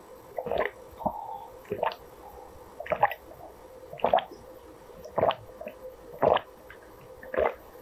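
A person gulping down a drink in steady swallows, about one gulp a second, seven in all.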